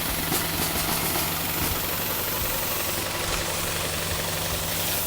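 A motor or engine running steadily with an even, low hum, with a few faint light clicks in the first second.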